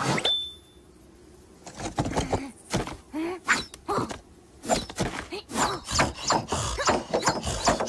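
Cartoon sound effects: a sharp hit with a brief high ding at the start, then, after a short pause, a run of squeaky, pitch-bending grunts and mutters from the cartoon animals mixed with quick clicks and knocks.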